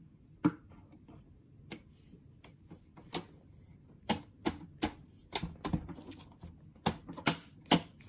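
Plastic front bezel of a Dell Optiplex 7010 ultra small form factor desktop being pressed onto its metal chassis: sharp clicks and taps as its tabs are seated. A few come at first, then about a dozen in quick succession through the second half.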